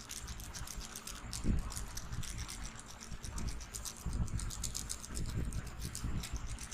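Head massage on hair and scalp: dense, rapid scratching and clicking, with soft low thumps about a second and a half and about four seconds in.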